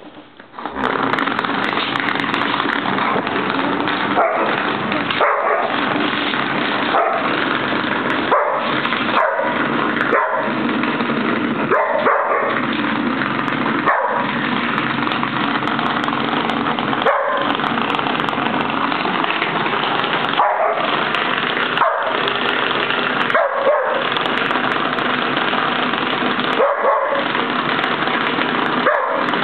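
Vibrating ladybug massager switched on about a second in, vibrating steadily against a wooden floor, with short drop-outs every one to three seconds.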